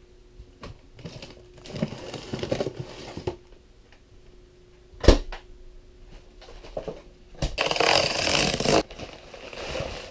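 Frozen pizza box and its plastic wrap rustling and scraping as it is handled, with a single sharp thud about five seconds in as the freezer door shuts. A faint steady hum sits underneath.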